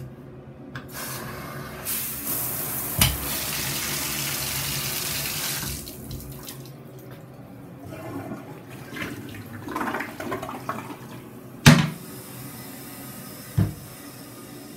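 Bathtub faucet running, a steady rush of water for about five seconds that then stops. Later come two sharp knocks, the louder one at about twelve seconds in, from the toilet lid being handled.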